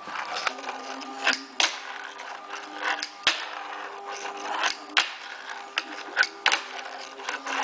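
A fingerboard's small plastic deck and wheels clacking sharply on a wooden tabletop as flip tricks are popped and landed, about a dozen separate clacks. Between them comes the short rolling of the tiny wheels, over a faint steady hum.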